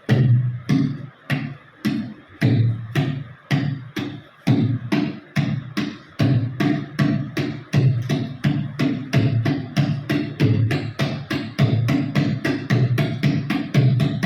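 Tabla played to imitate a train running, its strokes speeding up steadily from about one every second or so to several a second, like a train gathering speed. The deep ringing of the bass drum carries under the sharp strokes.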